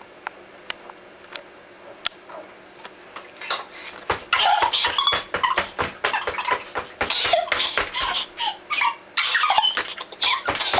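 Two children's voices sped up to a high chipmunk pitch, giggling and squeaking. For the first few seconds there are only a few light clicks; the squeaky giggling starts about four seconds in and keeps coming in quick bursts.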